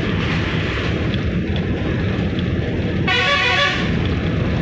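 Steady running noise of a bus engine and road, heard from inside the moving bus. About three seconds in, a vehicle horn sounds once for under a second.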